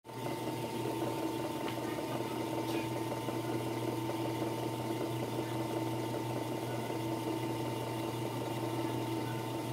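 Electric motor of a Puritan three-needle industrial sewing machine humming steadily while the machine stands idle and is not stitching. A couple of faint ticks come in the first few seconds.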